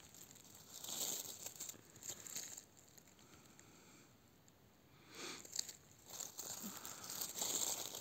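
Faint rustling and crinkling of dry pine needles, leaves and moss as a hand brushes forest litter off a porcini mushroom. It comes in short spells, with a quiet gap of a couple of seconds in the middle.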